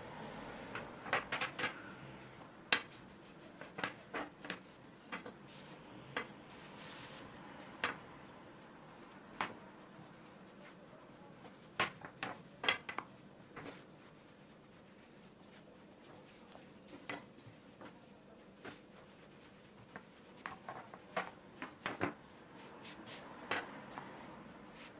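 Long thin wooden rolling pin rolling out dough on a floured wooden tabletop: scattered light knocks and clicks, in small clusters, as the pin rolls and taps against the board.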